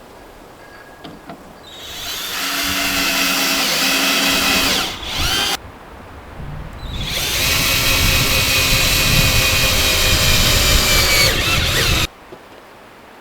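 Power drill running in two long bursts, the first about three seconds long and the second about five, its motor pitch sliding down as each burst stops.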